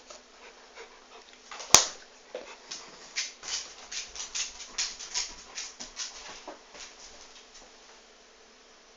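A dog, with one sharp knock about two seconds in, then a run of short, quick noisy sounds about three a second that fade out near the end.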